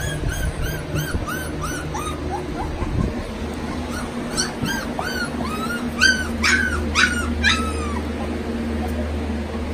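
Young retriever puppies whimpering: a string of short, high cries, each rising and falling in pitch, with the loudest cries coming about six to seven seconds in.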